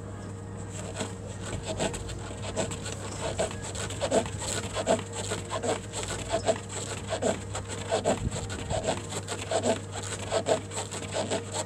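A man breathing hard in short, rhythmic, effortful exhalations, about one or two a second, with rustling and rubbing against the exercise mat as he works through a high-intensity floor exercise.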